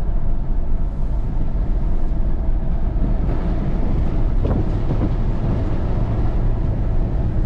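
Pickup truck driving on the road, heard from inside the cab: a steady low rumble of engine and tyres, with one short knock about four and a half seconds in.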